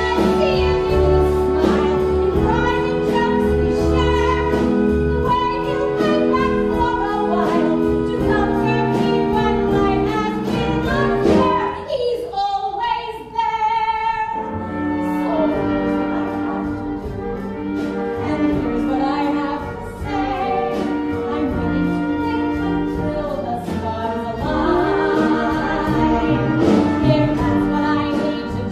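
A woman singing a solo number from a stage musical over instrumental accompaniment. The accompaniment thins to almost nothing about twelve seconds in, then comes back.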